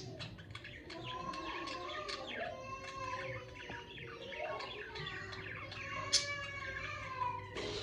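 Pet budgerigars chattering and warbling, a continuous stream of short chirps, with one sharp click-like note about six seconds in.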